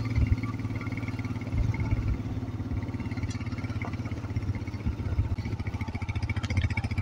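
Motorcycle engine running at low revs with an even pulsing beat as the bike is ridden slowly up a rough, stony dirt track, with a few louder surges.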